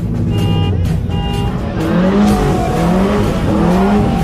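Car engine revving up and down repeatedly, about once a second, from about two seconds in, over a haze of tyre noise. Background music with steady notes plays throughout and is the main sound in the first second or so.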